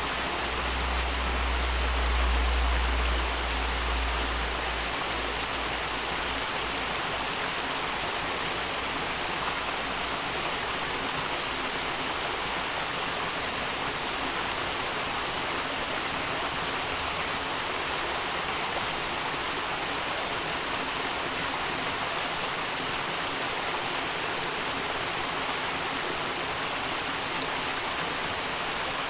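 Small wild mountain brook running steadily, a continuous rush of water. A low rumble sits underneath in the first few seconds, then fades out.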